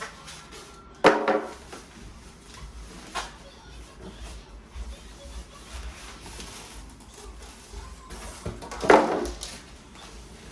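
Packaging being handled during an unboxing: two sharp knocks, one about a second in and a louder one near the end, with light rubbing and tapping between.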